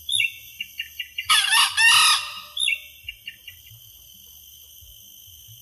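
Red junglefowl rooster crowing once, a short shrill crow of about a second, with a few short high chirps just before and after it.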